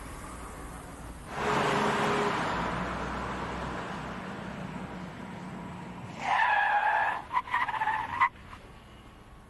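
Car braking hard on anti-lock brakes: a loud rush of tyre and road noise about a second in, fading slowly, then the tyres squealing in broken, choppy chirps for about two seconds near the end.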